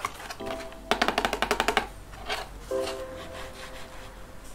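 A cardboard box being handled by hand as its top flap is pulled open: a quick run of crackling clicks lasting about a second, then softer rubbing and scraping of cardboard.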